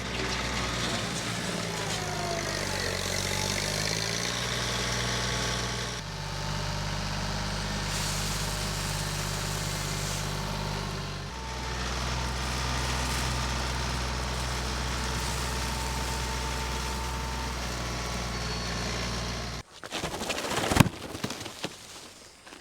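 Tractor engine running steadily, its pitch stepping to a new speed twice as the throttle changes. The engine sound cuts off abruptly near the end and gives way to a few scattered knocks and clatter, one sharp and loud.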